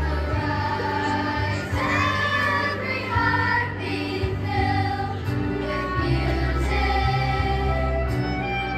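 Children's choir singing together with instrumental accompaniment, sustained low bass notes under the voices.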